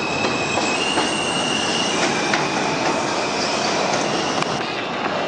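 New York City R160B subway train running along the elevated track as it pulls out of the station, a steady rumble with high squealing tones over it that shift in pitch a couple of times, and a few light clicks from the rails.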